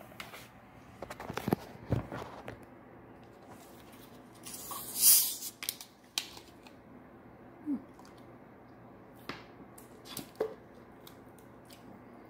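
Plastic soda bottle being twisted open, with a short hiss of escaping carbonation about five seconds in, amid scattered clicks and handling knocks.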